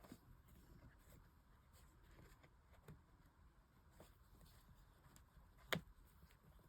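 Faint hand-sewing sounds on a leather handle: soft rustles and small scattered clicks of needle and thread, with one sharper click a little before the end.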